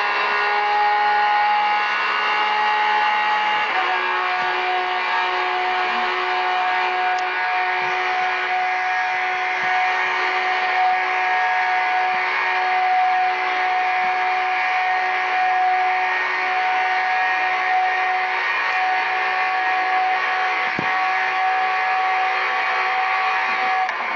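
Lamborghini Aventador's V12 engine droning at steady high revs, its pitch dropping slightly about four seconds in and then holding level.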